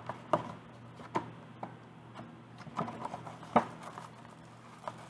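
A cardboard craft-kit box and its contents being handled: a scatter of short clicks, taps and crinkles at irregular intervals, over a low steady hum.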